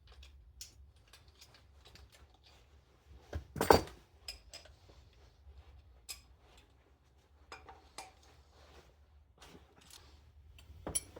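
Metal tools clinking and clanking against an engine while a 14mm socket wrench loosens the coolant drain plug: scattered light clicks, with one loud clank about three and a half seconds in and another near the end.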